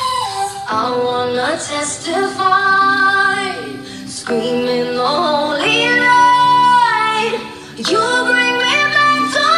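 Female vocals singing over a pop song's karaoke backing track, in three phrases of long held notes with short breaks about four and eight seconds in.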